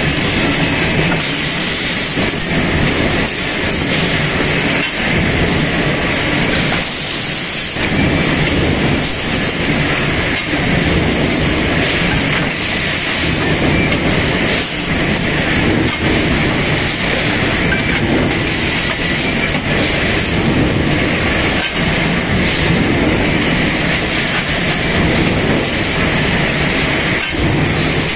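Brake pad back plate production line machinery running: a steady, loud mechanical din with irregular metallic clanks from the presses and conveyor.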